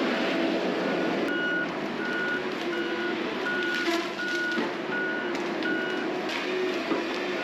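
Reversing alarm beeping at an even pace, about three beeps every two seconds, starting about a second in, over the steady running of a heavy forestry machine's engine, with a few metallic clanks.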